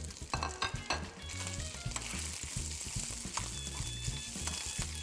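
Hydrated textured soy crumbles sizzling in olive oil in a non-stick frying pan over a gas flame while being stirred with a metal spoon. A few clicks of the spoon on the pan come in the first second, then a steady sizzle.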